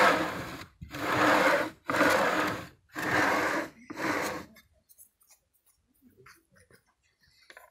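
Plywood top of a homemade two-axis cutting table pushed back and forth on its ball-bearing rack-mount rail slides: four rolling, rubbing strokes of about a second each. After that only a few faint clicks.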